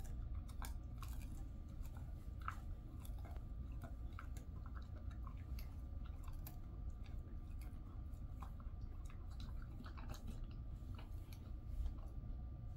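A Jindo dog chewing a chicken-wrapped dried capelin treat: soft, irregular crunches and clicks of teeth working through the snack.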